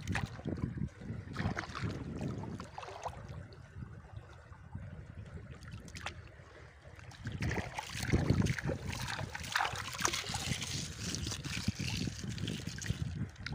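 Shallow river water sloshing and splashing as a plastic basket is swished through it and hands scoop mud into it, rinsing the mud away to sift out kupang clams. Quieter for a few seconds in the middle, then busier splashing in the second half.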